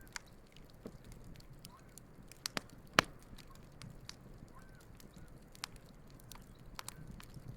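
Wood campfire crackling, with irregular sharp pops of burning wood, the loudest about three seconds in.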